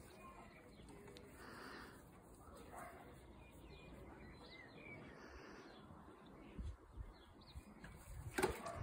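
Faint garden ambience with distant birds chirping, and a sharp knock near the end.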